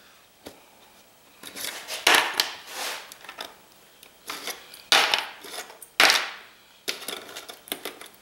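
Small metal SFP fiber-optic transceiver modules being pulled from their cages and dropped onto a circuit board, giving a run of sharp metallic clacks and clinks at irregular intervals, the loudest about 2, 5 and 6 seconds in.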